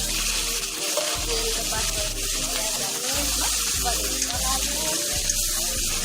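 Chopped onions sizzling steadily as they fry in hot oil, with background music playing over it.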